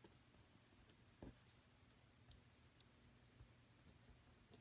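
Near silence with scattered faint ticks and clicks of a pen writing on a paper sheet.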